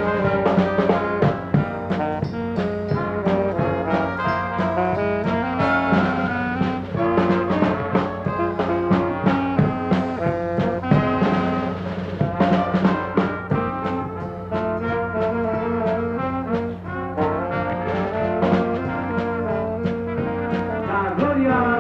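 Brass-led band music, trombones and trumpets playing a moving melody over a steady drum beat, with a constant low electrical hum underneath.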